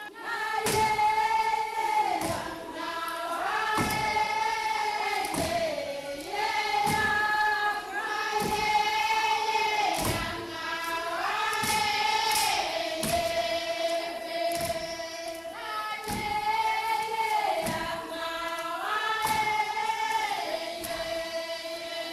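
A group of voices singing a melody together, holding long notes and stepping up and down in pitch, over a steady thudding beat about one and a half times a second.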